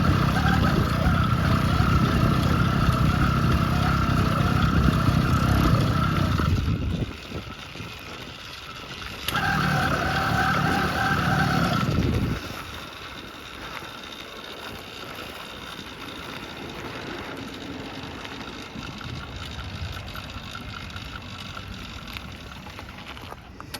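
Phantom 85 two-stroke bicycle engine running on its first start. It runs loud for about seven seconds, drops away suddenly, runs loud again for about three seconds, then falls to a much quieter steady sound for the rest.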